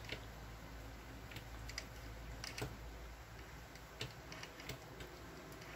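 Faint, irregular light clicks and ticks of hand crocheting: a metal crochet hook working cotton yarn, with hook and fingernails tapping, over a low steady hum.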